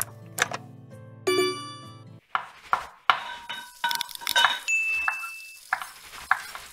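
A short music tune with a couple of sharp clicks, stopping about two seconds in, followed by an outro sound-effect sting: a quick string of clinks and dings with short ringing tones.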